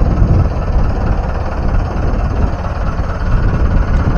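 A fishing boat's engine running steadily: a loud, even low drone.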